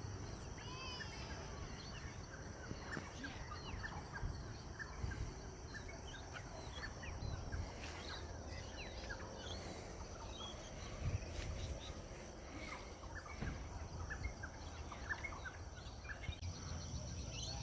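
Many birds chirping in short, scattered calls over a steady high insect drone.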